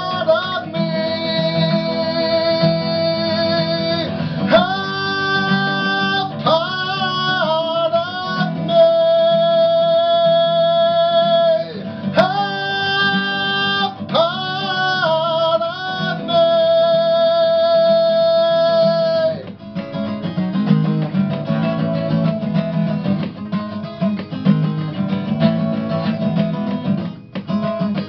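A man sings long held notes over a strummed acoustic guitar. After about twenty seconds the voice stops and the guitar strums on alone.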